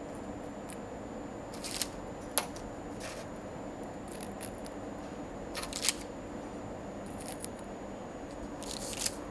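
Crisp, dry baked meringue cookies being set by hand into a cloth-lined wire basket: a few light, scattered clicks and rustles as the hollow shells touch one another and the basket, over quiet room tone.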